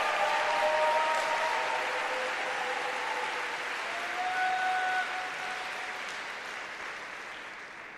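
Arena crowd applauding, with a few voices calling out over it, dying away over the last few seconds.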